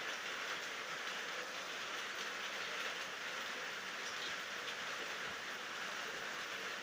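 Steady rainfall, an even hiss with faint scattered drop ticks and no thunder.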